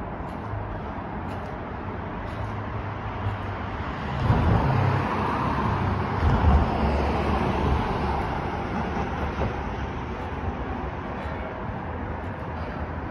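Road traffic on a city street, with a car driving past about four seconds in, its sound swelling and then fading away over a few seconds.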